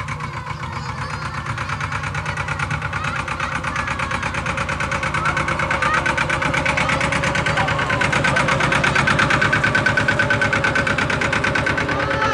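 Small farm tractor's engine running as it pulls a loaded trailer, a fast, even chugging that grows louder as the tractor comes close and passes.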